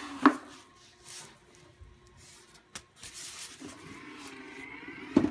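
Foam packing wrap being handled around a porcelain toilet: rustling, with squeaks as the foam rubs, and two short loud squeaks, one just after the start and one at the very end.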